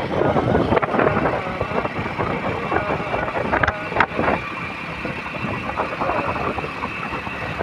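Hero commuter motorcycle riding along at road speed: engine, tyre and road noise under heavy wind rushing over the helmet-free microphone, with a couple of short knocks about three and a half to four seconds in.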